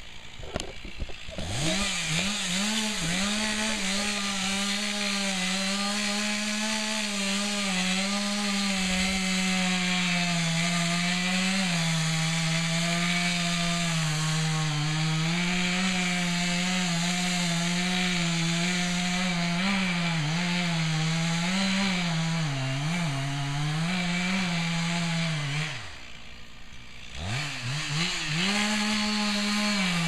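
Two-stroke chainsaw felling a Douglas fir: it revs up about two seconds in and runs at full throttle, its pitch sagging and recovering as it works through the cut. Near the end it drops to idle for about a second, then revs back up.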